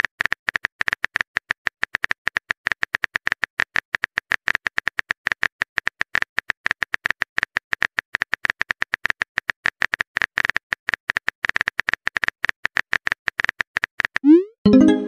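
Rapid synthetic keyboard-tap clicks from a texting app's typing animation, roughly eight a second, each with a short tone near 2 kHz. Near the end a rising swoosh and chime play as the message is sent.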